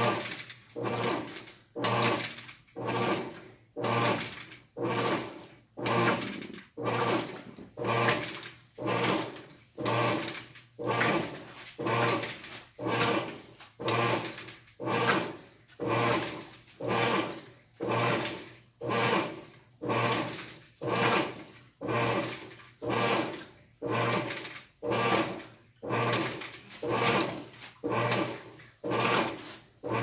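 GE belt-drive top-loading washing machine agitating a load: regular strokes about once a second. Each stroke has a hum with a swishing sound over it that rises quickly and fades.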